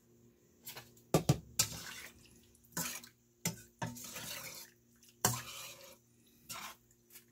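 Metal ladle stirring broth in a stainless steel pot of chicken soup, knocking against the pot about six times, with the liquid splashing and sloshing between the knocks.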